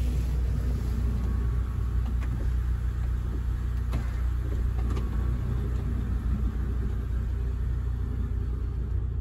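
Honda Odyssey's 3.5 L V6 idling steadily, heard from inside the cabin. Underneath it, the power sliding door runs open and then back closed, with a few faint clicks; its latch and closer assembly has just been cleaned and relubricated.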